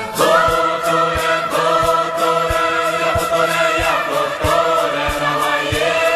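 Background music: sustained choir-like singing over a steady beat of about three low thumps a second.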